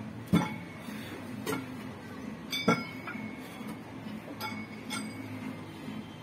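Metal weight plates on hand-held dumbbells clinking as the dumbbells are curled: about six sharp clinks, roughly one a second, the loudest about two and a half seconds in with a short metallic ring.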